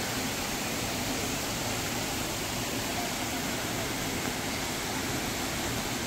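Steady rush of flowing water, an even hiss with no breaks or changes.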